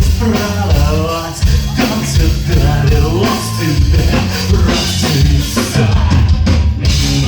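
Live rock band playing loudly: drum kit, bass and guitars, with a voice singing over them.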